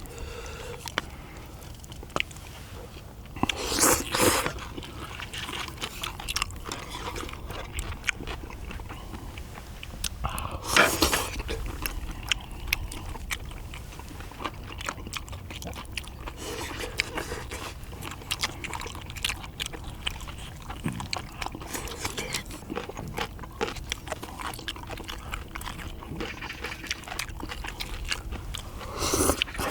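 Close-up eating sounds of stir-fried small octopus with noodles: steady chewing with many small wet clicks. There are two louder bursts about four and eleven seconds in.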